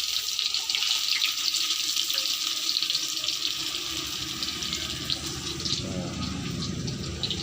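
Cassava pieces frying in hot oil: a steady sizzle with many small crackles.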